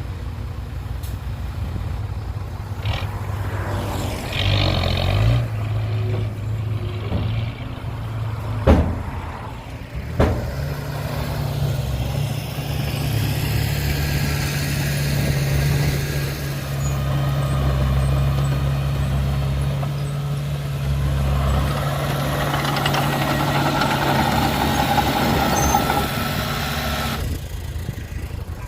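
Heavy diesel engines of a bulldozer and dump truck running steadily, with a short hiss early on and two sharp knocks about a second and a half apart partway through.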